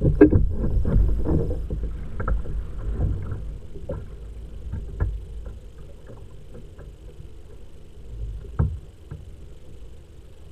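Sea water slapping and lapping against a fishing kayak's hull, with wind rumbling on the microphone; louder for the first few seconds, with scattered small knocks and one sharper knock near the end.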